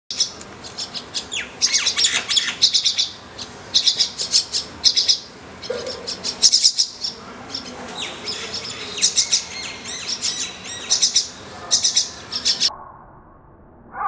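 Common myna nestlings giving harsh, rapid begging calls in repeated bursts, the hungry chicks' call for food. The calls stop about a second before the end.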